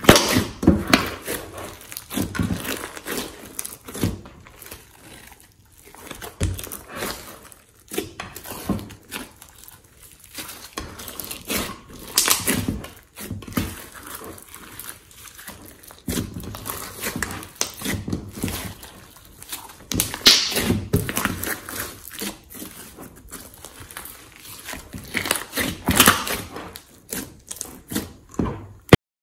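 Hands kneading, stretching and pressing a large mass of glossy slime with clay and makeup mixed in: sticky squishing and crackling in irregular bursts as the slime is pulled and pushed.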